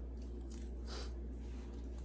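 Faint handling noises, with a soft rustle about a second in, over a low steady hum.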